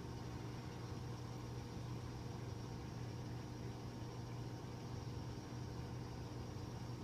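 Aquarium equipment running: a steady low motor hum with a faint even hiss.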